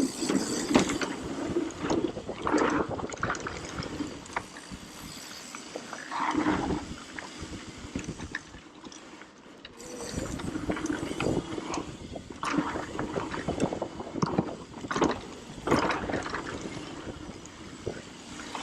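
Mountain bike rolling fast down a dirt trail: tyres on dirt and the bike rattling over bumps in many short clicks and knocks, with wind rushing over the camera microphone. It eases off for a moment about halfway through.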